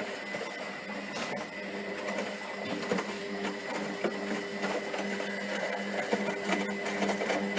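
Zanussi FlexiDose ZWG 6161 P washing machine running: a steady motor hum that briefly drops out a few times, with a faint high whine and light clicks and rattles.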